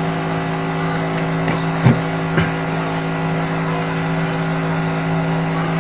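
A steady electrical hum made of several even tones, with two short clicks about two seconds in.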